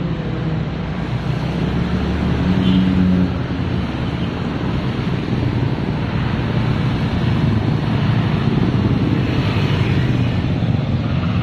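Engine running steadily while riding along a wet road, with a low, dense drone and hiss from wind and tyres over it.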